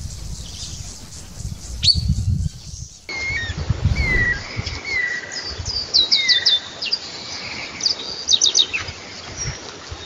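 Saffron finch calling: a run of short down-slurred chirps, then quick high rattling trills twice near the end. A low rumble runs through the first few seconds.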